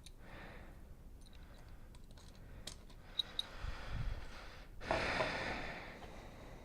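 A few light clicks and taps of small metal parts, a motorcycle footpeg with its spring and retaining clip being handled, then a short breathy rush about five seconds in.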